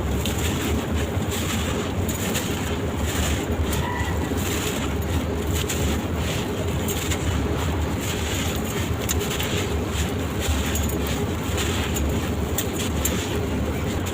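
Gritty sand-cement shapes crunching and crumbling, a continuous run of small grainy cracks over a steady low rumble. A brief high chirp about four seconds in.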